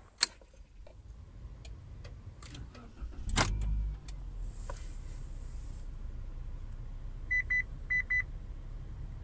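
A car engine started from cold in below-freezing weather: a short loud burst as it cranks and catches about three seconds in, then a steady idle. Near the end the dashboard gives four short beeps in two pairs, an icy-road warning chime. A sharp click comes just before the start.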